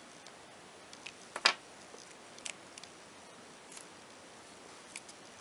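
Scattered small clicks of a plastic multi-pin wiring connector being worked with a small metal pick to release a terminal, the sharpest click about one and a half seconds in.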